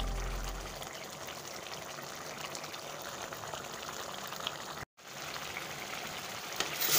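Mango chutney in sugar syrup bubbling as it simmers in a pan: a steady hiss, broken by a moment of dead silence about five seconds in.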